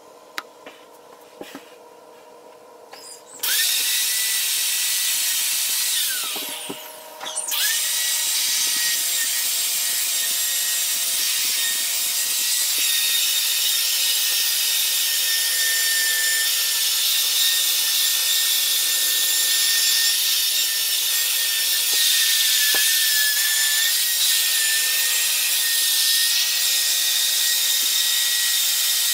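Electric drill spinning a nylon cup brush against glass mosaic tile, scrubbing dried grout off: a steady motor whine over a scrubbing hiss. It starts about three and a half seconds in, winds down and stops briefly around six seconds, then starts again and runs steadily.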